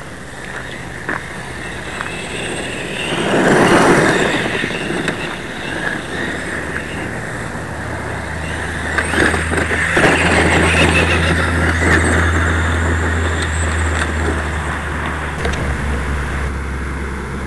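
Traxxas E-Maxx electric radio-controlled monster truck driving over gravel and dirt, its motors and tyres on loose ground making a rough, continuous noise that swells about three to four seconds in and again around ten seconds. A steady low rumble runs under it from about a third of the way in.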